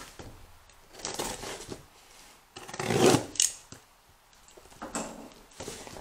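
A taped cardboard box being cut open and handled: a blade slitting the packing tape and cardboard rubbing and scraping, in a few noisy strokes, the loudest about three seconds in.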